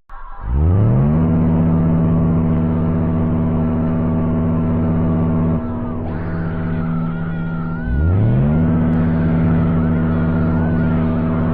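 Electronic emergency-alert alarm tone, a droning buzz that sweeps up to a steady pitch within the first second and holds. Its level dips a little past the middle, and it sweeps up again to the same pitch about eight seconds in, with a wavering higher tone over it near the end.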